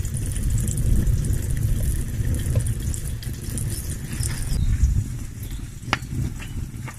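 An egg frying in oil in a pan over a wood fire, sizzling steadily over a low rumble. The sizzle thins out about two-thirds of the way in, and a couple of sharp crackles from the fire follow.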